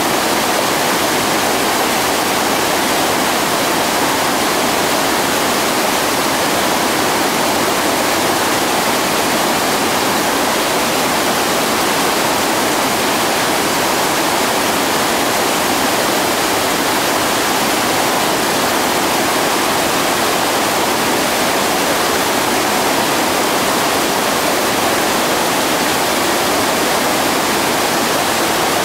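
Loud, steady rush of whitewater rapids, with no distinct strokes or splashes standing out.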